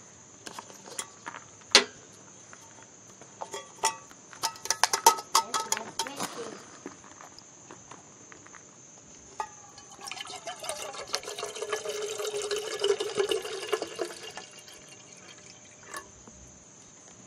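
Water poured from a plastic bottle into a metal percolator pot, a steady pour of about four seconds in the second half. Before it come scattered light clicks and knocks from handling the pot.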